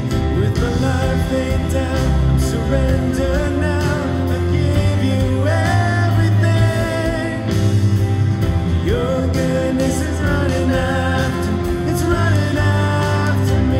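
Live worship band playing a song with singing over guitars, bass guitar, piano and drums.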